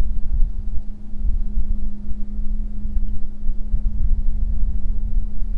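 Wind buffeting the microphone as an uneven low rumble, with a constant low hum underneath.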